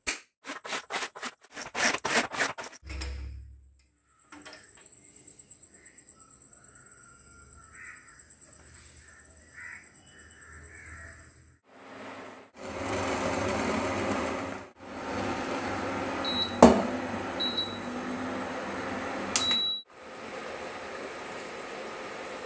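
A quick run of sharp clicks and a low thump, then a quiet stretch with a steady high whine and faint calls. An induction cooktop runs with a steady hiss under a steel pot of water, beeping three times with a sharp click among the beeps, and near the end comes a steady hiss of tea being poured through a strainer into a glass cup.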